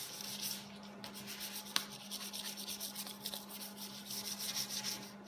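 320-grit sandpaper rubbed by hand over a painted metal convertible top frame rail, quick back-and-forth scratching strokes at about five a second, with a short pause just under a second in and a single light tick about two seconds in.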